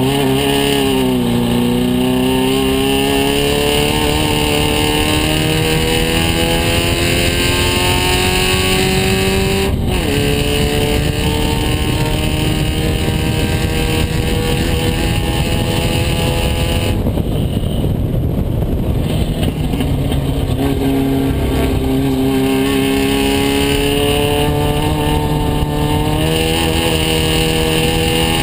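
Open-cockpit race car's engine heard from the cockpit on a hot lap, its pitch climbing steadily and dropping sharply at an upshift about ten seconds in. Around two-thirds of the way through, the engine note gives way to rushing air for a few seconds as the driver lifts off, then the engine pulls hard and climbs again, with another shift near the end.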